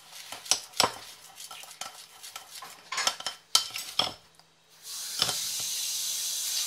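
A metal teaspoon knocking and scraping against a ceramic bowl as it stirs a thin paste, in irregular clinks for about four seconds. About five seconds in, a steady hiss starts and carries on.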